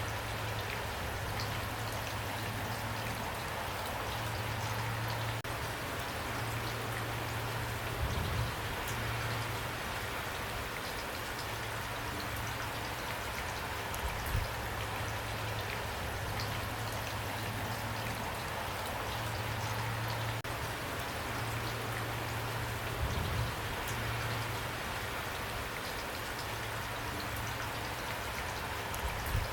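Steady rain falling, with many small drops ticking on a surface. A low hum comes and goes underneath, and a few soft low thumps sound at intervals.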